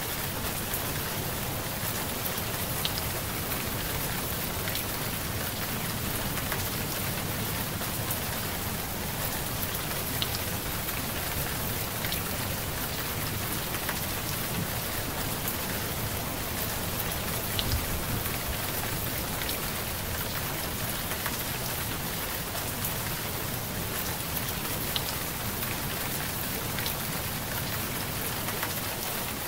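Steady rain with scattered sharp drop ticks, and one brief low thump about two-thirds of the way through.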